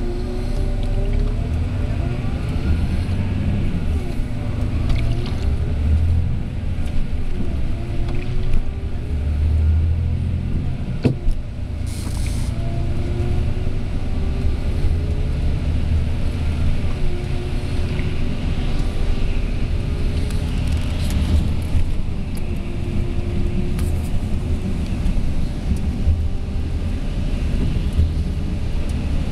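Volvo B9R coach's diesel engine running under way, heard from inside the coach: a steady low rumble whose note climbs slowly and drops back several times as it works up through the revs. A single sharp click about eleven seconds in.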